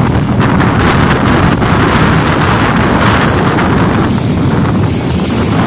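Wind buffeting the microphone in loud, uneven gusts over small lake waves lapping. There is no steady motor tone.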